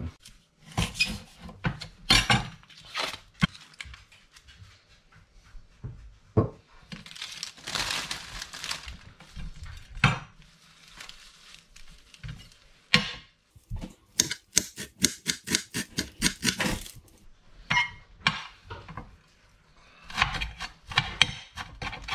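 Chef's knife chopping fresh parsley on a plastic cutting board: runs of quick taps, fastest a little past halfway and again near the end. A few seconds of rustling plastic packaging come before the fastest run.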